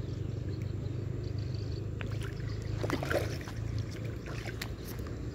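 A hooked fish thrashing and splashing at the water's surface close to the bank, in a cluster of splashes loudest about three seconds in, over a steady low rumble.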